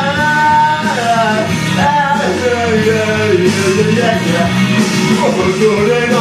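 A man singing into a karaoke microphone over a backing track, holding long notes that slide up and down in pitch.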